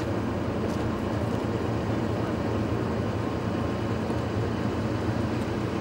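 Heavy military vehicle's diesel engine running at a steady idle, a constant low drone.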